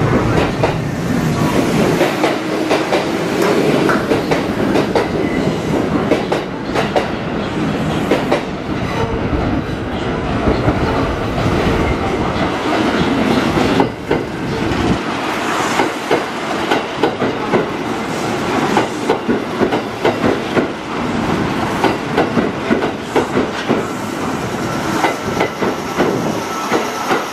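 Kintetsu limited express train moving through the station, its wheels clacking over rail joints and points in quick, uneven clicks over a low rumble; the deepest part of the rumble cuts off about fifteen seconds in.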